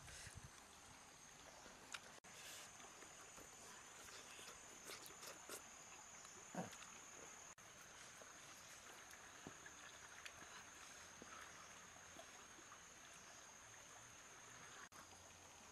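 Near silence: faint outdoor ambience with a steady high-pitched whine and a few soft clicks.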